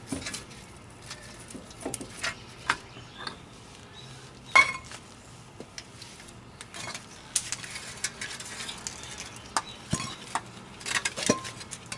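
Metal clanks and clinks as a Suburban 2500 4WD's front brake rotor and hub bearing assembly is worked off the steering knuckle and the loose steel parts are handled. The loudest is a single clank with a short metallic ring about four and a half seconds in, followed by scattered lighter clinks.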